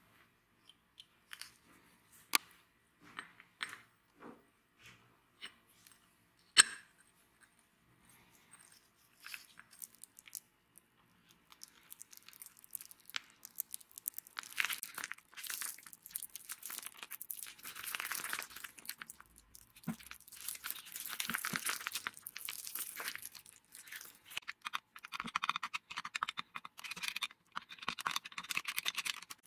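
Metal parts of an angle grinder's gear head clicking and knocking as they are handled, with one sharp click a little over six seconds in. Then a long, dense run of small crackly, squishing noises as grease is squeezed from a plastic tube into the aluminium gear housing and worked in with a tool.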